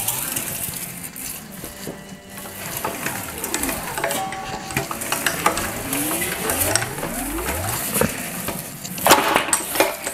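Hand-cranked slip roller rolling a sheet of steel into a curve for a tank shell: metallic scraping and clinking from the rolls, with the thin sheet warbling up and down in pitch as it flexes. About nine seconds in the sheet rattles more loudly as it is lifted off the rolls.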